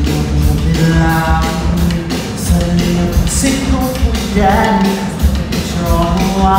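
Loud rock music from a stage show's sound system, with a sung melody over held notes and a heavy beat, heard from the audience in a theatre hall.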